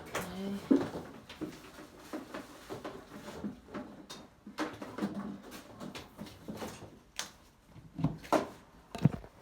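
Irregular knocks, clicks and light scrapes of things being handled and set down, with a few louder knocks near the end.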